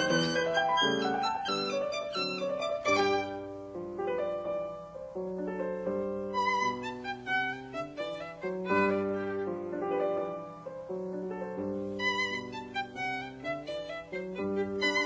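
Instrumental background music, a melody of held notes.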